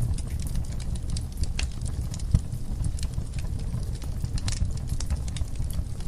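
Burning logs in a fireplace crackling and popping irregularly over a steady low rumble, with one louder pop a little over two seconds in.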